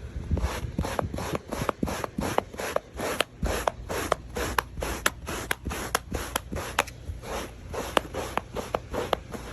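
Lilly Brush pet hair scraper dragged over sofa upholstery in quick, even strokes, about three a second, raking up embedded dog hair.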